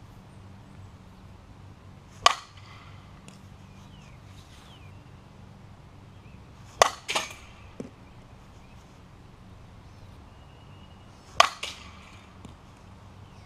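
Softball bat hitting a softball off a batting tee three times, about four and a half seconds apart: each hit is a sharp crack with a brief ring. The middle hit is followed closely by a second, smaller knock.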